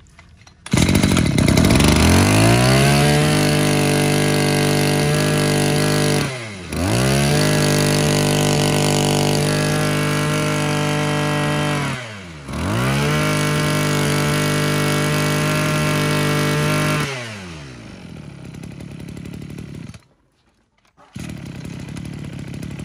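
Maruyama 23cc two-stroke brush cutter engine revved to high speed and held there three times, about five seconds each, dropping briefly toward idle between. It then falls back to a quieter idle, breaks off for about a second near the end, and idles again.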